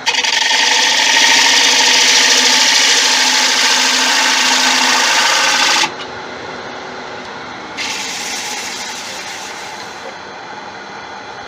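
Turning tool cutting the inside of a wooden bowl spinning on a Laguna 1836 lathe, as a re-cut to take out a bump felt in the surface. A long loud cut of about six seconds stops suddenly, and a lighter pass follows about two seconds later, with the lathe running quietly in between.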